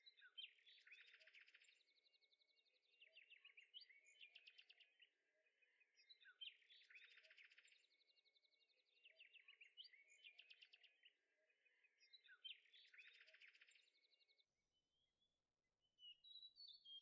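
Faint birdsong: quick chirps and rapid trills in a pattern that repeats about every six seconds, stopping shortly before the end, followed by a few different chirps.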